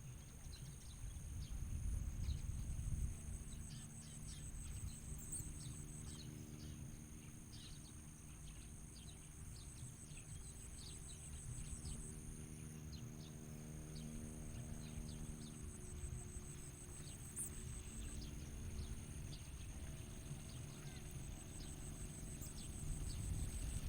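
Faint, short, high chirps of bar-winged prinias scattered throughout, over a low steady rumble and a constant high-pitched drone; a faint hum rises in the middle and fades out.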